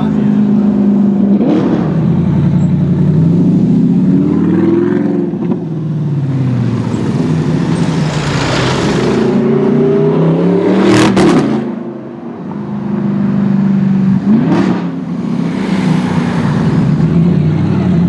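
Audi R8 with a loud aftermarket exhaust revving and accelerating, its engine note rising and falling through several pulls, with two sharp cracks in the second half.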